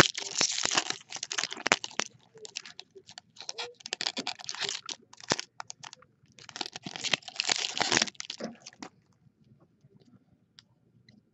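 Wrapping on hockey card packs being torn open and crinkled, in three bursts of crackling, stopping about nine seconds in.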